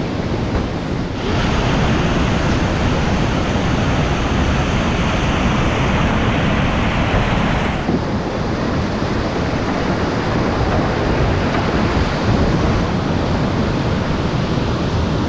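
Whitewater rapids rushing, heard close up from a kayak as a steady roar of water. The rush gets louder and brighter about a second in and turns a little duller about halfway through.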